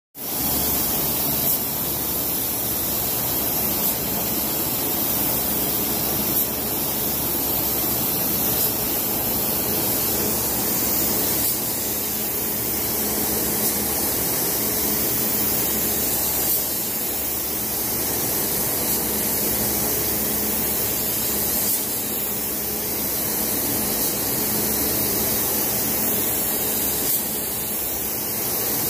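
Matco HVLP gravity-feed spray gun with a 1.4 mm tip spraying clear coat: a steady hiss of atomising air.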